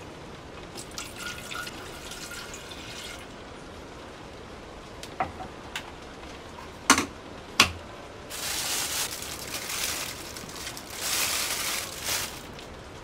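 Water pouring in two spells of about two seconds each, after two sharp knocks less than a second apart.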